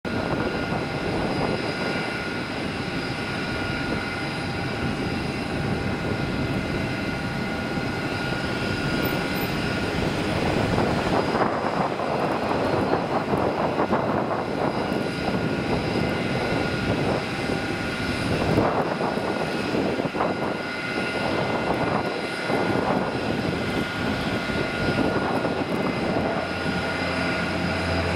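Twin turboprop engines and propellers of a De Havilland Canada Dash 8-300 at takeoff power, a steady drone with a high whine. It grows louder and rougher about eleven seconds in as the aircraft rolls down the runway and lifts off.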